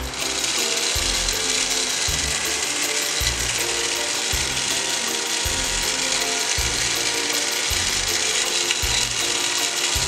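Battery-operated toy vacuum cleaner switched on, its small electric motor running with a steady whirr and a geared, ratchety rattle.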